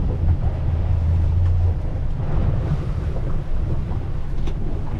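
Strong wind buffeting the microphone on a boat under way, over the boat's motor. A steady low hum from the motor stops a couple of seconds in.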